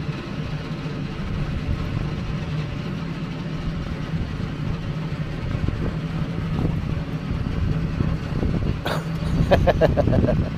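Motor yacht's engines running steadily at low speed, a constant low hum under a rush of wind and water. A brief louder burst of noise comes about nine seconds in.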